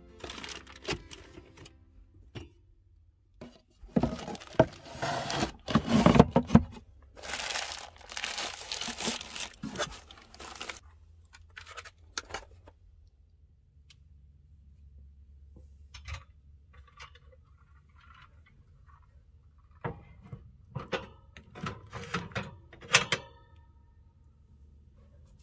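Objects being handled and set down. Two long stretches of rustling and crinkling, like packaging, come a few seconds in, with light knocks and clicks around them and another run of knocks near the end.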